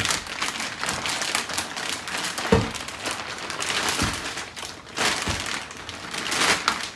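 Clear plastic bag crinkling and rustling as a gaming chair's five-star base is worked out of it, with a sharp knock about two and a half seconds in.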